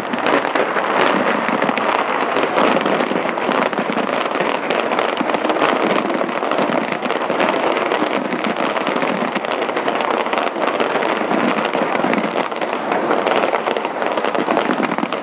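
Taipei 101 fireworks show: a steady, dense crackle of many rapid small bursts, with no single big boom standing out.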